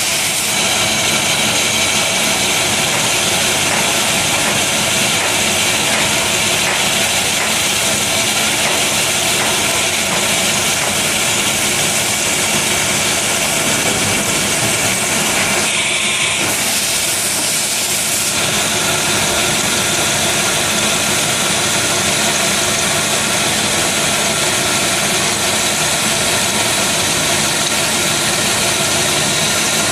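Numerically controlled machine tool running steadily: a loud, even hiss over a hum of steady tones, with a brief change in the hiss about halfway through.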